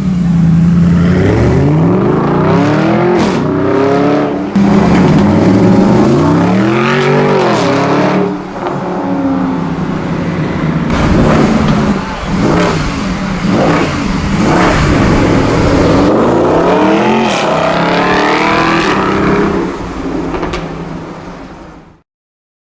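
Mercedes SLS AMG's 6.2-litre V8 through an aftermarket sports exhaust, revs rising and falling again and again, with sharp crackles and pops on the overrun. It fades out near the end.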